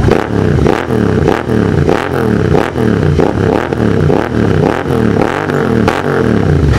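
Royal Enfield Interceptor 650's parallel-twin engine breathing through an aftermarket Mototorque exhaust with the dB killer removed, its throttle blipped over and over, about three revs every two seconds, each rising then falling back. The speaker calls it roaring.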